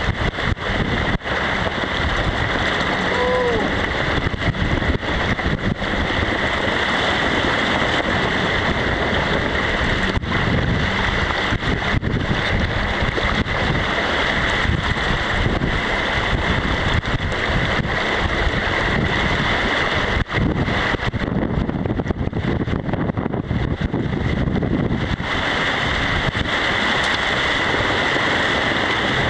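Strong wind blowing over the microphone, with water rushing and splashing along the hull of a small sailboat heeled hard in a gusty blow. A short faint rising tone sounds about three seconds in.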